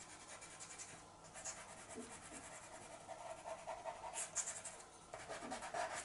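Pastel pencil scratching across light grey Pastelmat card in short, uneven strokes, a little louder about four seconds in.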